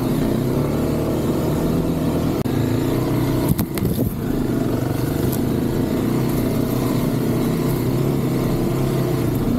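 Kawasaki KLX 300 dirt bike's single-cylinder four-stroke engine running steadily at low trail speed, heard from on the bike. About three and a half seconds in there is a brief clatter and dip in the engine note.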